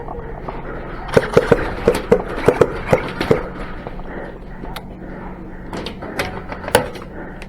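Airsoft guns firing: a quick string of about nine sharp shots in two seconds, then a few scattered shots.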